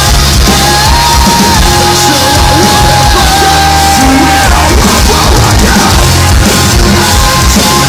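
Metalcore band playing live at full volume: distorted guitars, bass and drums under yelled vocals, with a high note held through the first half.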